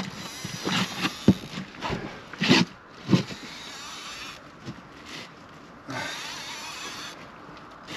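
Handling noise from an angler fighting a hooked catfish from an inflatable boat: rod, reel and body against the boat, with a quick run of sharp knocks and scuffs over the first few seconds, then a quieter stretch with a short rushing noise about six seconds in.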